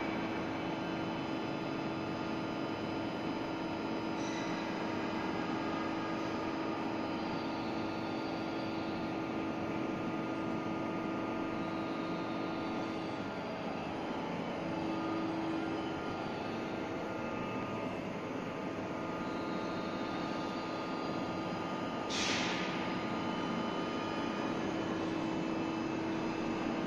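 Steady machine hum with several steady tones from a CNC plasma and oxy-fuel gantry cutting machine in a factory hall, with faint high whines that waver. A short hiss comes about 22 seconds in.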